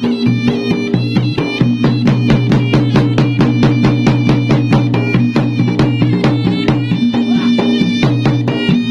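Traditional Makassar-Bugis gendang drums beating a fast, dense rhythm, several strokes a second, with a reedy wind instrument playing a held, stepping melody over them.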